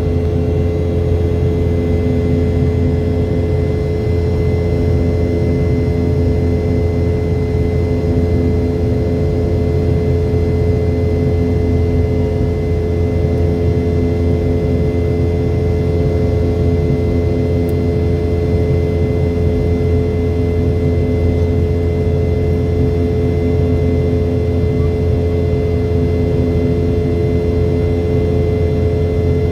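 Boeing 717 cabin noise in the climb: the steady drone of its rear-mounted Rolls-Royce BR715 turbofans and airflow, with a deep rumble and a few constant hums.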